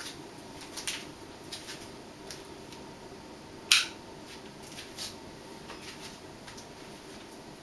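Motor of a 1981 Nadair spinner ceiling fan humming steadily as it settles onto its slowest speed, with scattered light clicks and one sharper click a little under four seconds in.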